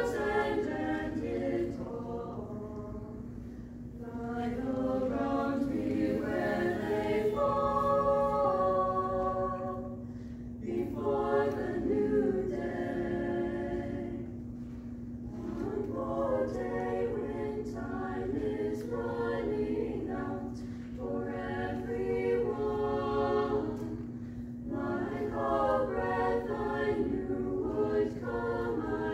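Small mixed-voice chamber choir singing in parts, in phrases that swell and ease off with short breaths between them.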